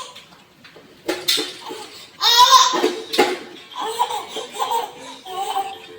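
Baby girl laughing in a string of short bursts, the loudest a little over two seconds in, followed by several smaller giggles.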